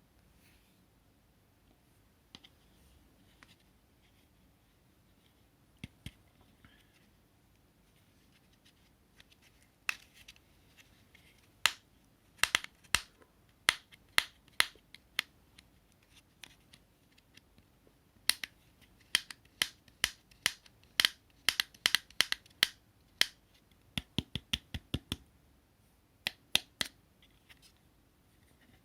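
A series of short, sharp clicks and taps on hard objects, a few scattered at first, then coming in quick irregular clusters, with brief pauses between the clusters.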